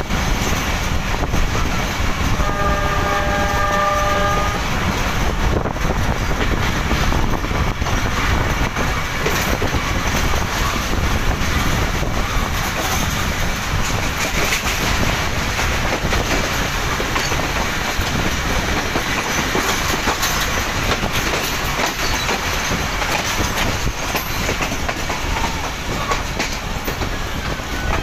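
Pakistan Railways passenger train running, heard from beside the open coach doorway: a steady rumble of wheels on rail with clickety-clack over the joints. About two and a half seconds in, the locomotive's horn sounds once for about two seconds.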